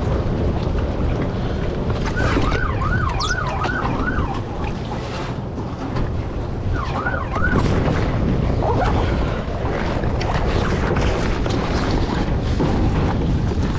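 Distant emergency-vehicle siren in its fast yelp mode, its pitch rising and falling about four times a second, heard in short runs about 2 s and 7 s in, over steady wind buffeting the microphone.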